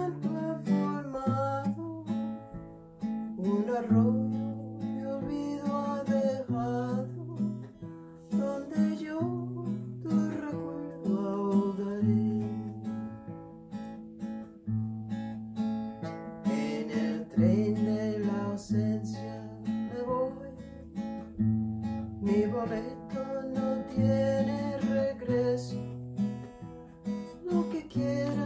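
Steel-string acoustic guitar strummed in a steady bass-and-strum pattern: single bass notes alternating between two pitches, each followed by chords.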